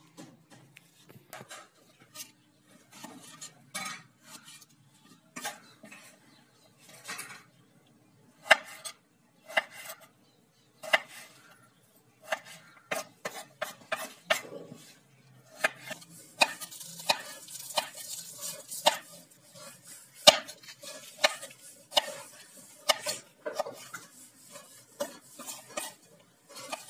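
Kitchen knife slicing raw potatoes into thin strips on a wooden chopping board: irregular knocks of the blade through the potato onto the wood. The cuts come sparsely at first and fall much more quickly and often over the last third.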